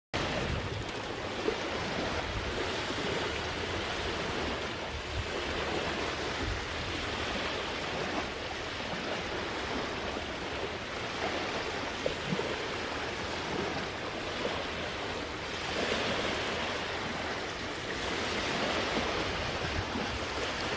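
Lake waves washing onto a beach, a steady rush that swells a couple of times near the end.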